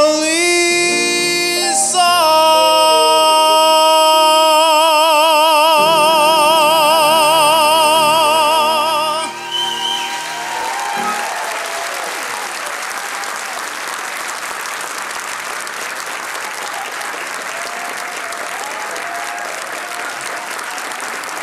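A male vocalist sings a crooner ballad with instrumental accompaniment, rising about two seconds in to a long held final note with a wide vibrato that ends about nine seconds in. The audience then applauds steadily.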